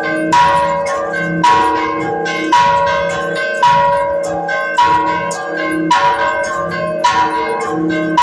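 Church bells rung by hand in a Mexican-style repique, a call to Mass: a loud stroke about once a second, with lighter strokes on other bells of different pitch in between, each note ringing on into the next.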